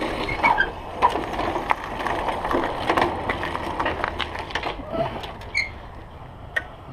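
Irregular sharp clicks and knocks over a faint noisy background, like small mechanical parts being handled or rattled.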